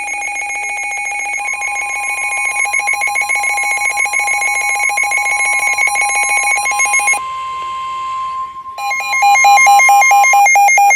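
NOAA weather radios sounding their alert alarms for a special marine warning: fast-pulsing electronic beeps over a steady single-pitch warning alarm tone. The beeps drop out about seven seconds in, and a louder alternating two-tone beeping starts near nine seconds.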